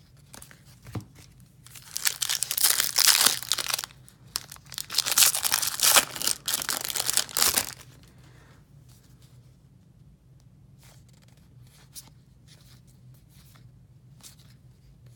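A baseball card pack's wrapper being torn open and crinkled, in two long noisy stretches, followed by faint light ticks as the cards are handled.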